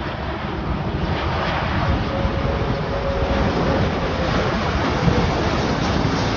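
Jet noise from a Cathay Pacific Airbus A330 airliner flying low past on final approach, gear down: a loud, steady rushing sound that builds slightly, with a faint whine in it for a couple of seconds around the middle. Wind buffets the microphone.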